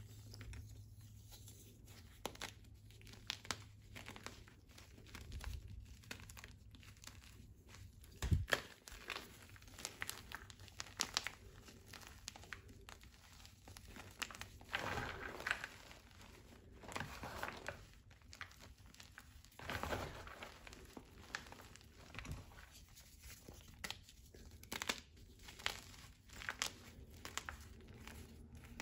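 Hands crushing and crumbling powdery reformed gym chalk: irregular soft crunches and crackles, with a few louder crunches scattered through.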